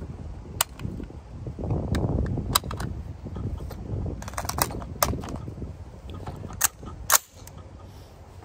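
Sharp metallic clicks and clacks from an AR-15 being loaded by hand: steel-case cartridges handled, then a magazine seated in the magazine well about four seconds in, with a louder single clack near the end.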